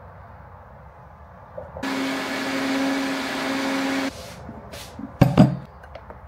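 Countertop blender running for about two seconds, blending a papaya smoothie, with a steady motor hum that cuts off abruptly. About a second later comes a sharp loud clunk, like the blender jar or lid being handled.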